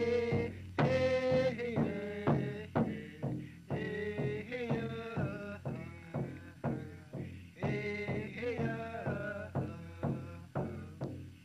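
Music: a melody of separate pitched notes, each starting sharply and dying away, over a steady low tone.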